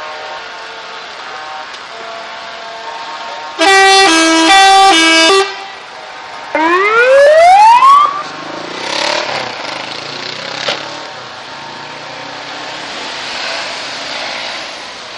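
A musical multi-note air horn blares a quick tune that switches back and forth between two chords for about two seconds. A moment later comes one loud siren wail rising steeply in pitch, which trails off into fainter sweeps over the noise of passing traffic.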